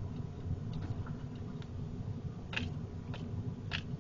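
Truck driving slowly over a rough dirt track, a steady low rumble heard from inside the cab, with a few short sharp ticks, the clearest about two and a half seconds in and near the end.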